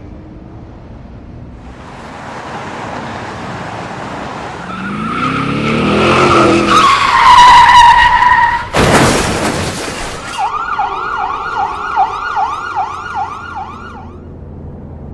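A car approaches, its engine revving and its tyres skidding with a high screech, then crashes with one loud impact. Afterwards a wailing car alarm sweeps up and down about two to three times a second for several seconds.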